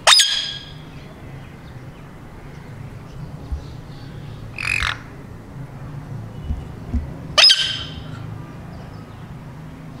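Indian ringneck parrot squawking three times: short, shrill calls at the very start, about halfway through, and again about two-thirds of the way in.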